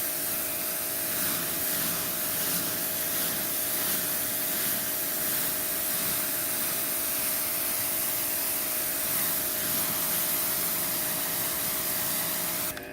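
2200 psi electric pressure washer spraying concrete through a 15-degree tip: a steady hiss of the water jet over the pump motor's steady whine. The spray cuts off right at the end while the motor keeps humming.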